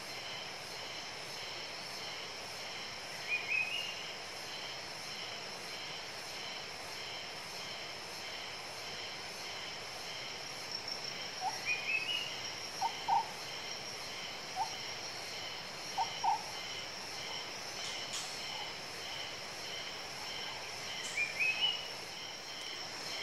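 Tropical forest ambience: a steady, high insect chorus with a pulsing layer beneath it. A bird gives a short rising call three times, and a run of short, lower single notes sounds in the middle.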